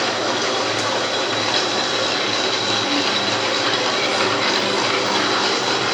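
Milling machine with a hobbing attachment running steadily: an even mechanical noise with a thin, steady high whine over a low hum.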